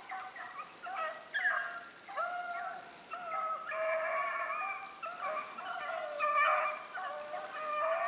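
A pack of rabbit hounds baying on a chase, several dogs giving voice at once in overlapping, repeated bawls, the sound of the pack running a rabbit's track.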